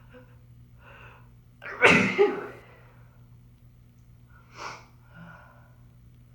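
A woman sneezing with a cold: a couple of faint catching breaths as it builds, then one loud sneeze about two seconds in, followed by a short sharp breath and a softer one.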